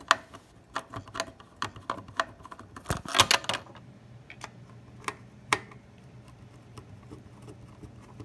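Screwdriver clicking and scraping in the mounting screws of a circuit board in a plastic case as the screws are backed out: a run of sharp ticks, with a dense rattle of clicks about three seconds in, then scattered ticks.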